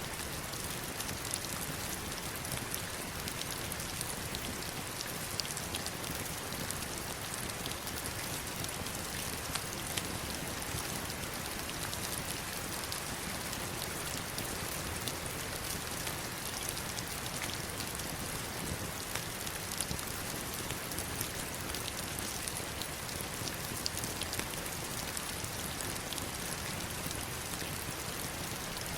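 Heavy rain falling steadily on stones and water: a dense, even hiss dotted with many sharper drop ticks.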